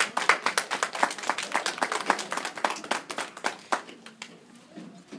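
Small audience clapping: a dense patter of hand claps that thins out and stops about four seconds in.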